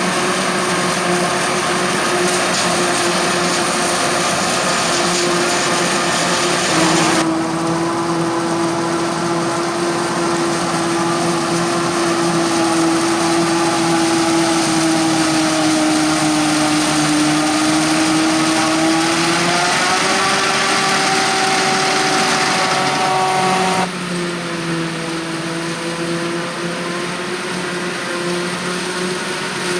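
Heavy farm machinery running steadily in a maize silage harvest: the diesel engines of a forage harvester and tractors, with a hum and whine that drop in pitch and then rise again. The sound changes abruptly twice, at about 7 s and again at about 24 s, where it becomes quieter.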